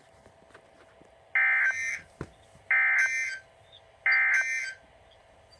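Three short, identical bursts of Emergency Alert System SAME digital data tones, about a second apart: the end-of-message code that closes a NOAA Weather Radio weekly test.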